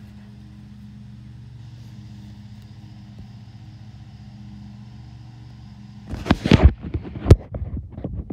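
A steady low mechanical hum, like a motor running, which stops abruptly about six seconds in. Loud irregular thumps and rumbles follow.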